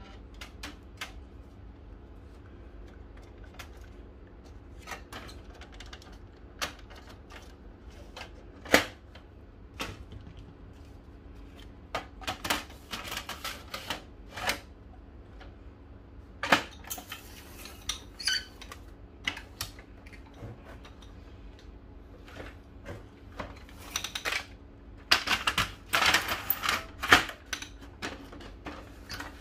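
Plastic covers and panels of a Brother HL-2270DW laser printer being handled and snapped back into place: scattered clicks and knocks, with two spells of rattling plastic and a few sharp snaps.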